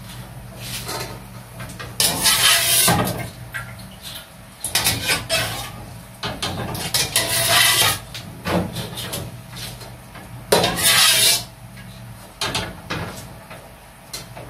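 A wire-mesh frying strainer scraping and clinking against an aluminium wok as fried peanuts are scooped out and tipped into a colander, in several short bursts, over a steady low hum.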